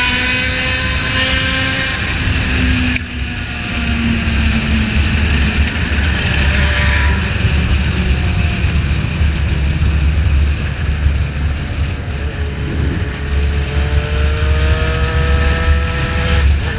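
Motorcycle engine revving up in pitch under acceleration, easing off about three seconds in, then climbing again near the end, over a heavy low rumble of wind noise on the microphone.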